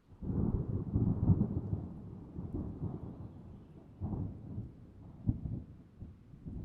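Thunder rumbling, deep and rolling. It starts suddenly, is loudest in the first two seconds, then fades, with further rolls about four and five seconds in.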